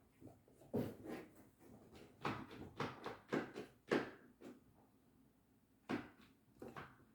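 Handling noise of small objects at a table: a run of light knocks and clicks, then a few more near the end.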